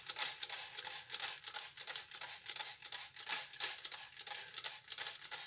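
Small plastic spray bottle squeezed again and again, misting water onto a tray of perlite: a run of short hissing spurts, about three a second.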